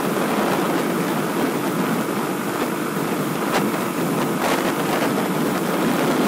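Wind rushing over the microphone of a moving Yamaha YBR125 motorcycle, its small single-cylinder engine and tyres on the wet road running underneath as a steady noise.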